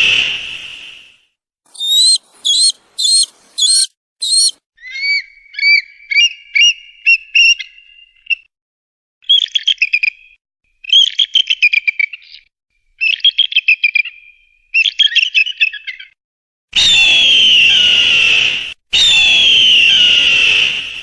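Eagle calls: a long, harsh, falling scream at the start, a few short, sharp, rising notes, then runs of rapid chittering. Two more long, falling screams come near the end.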